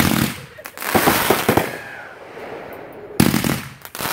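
Consumer aerial fireworks going off: a sharp bang, then a quick run of reports about a second in, trailing into crackle and hiss. Another loud bang comes about three seconds in.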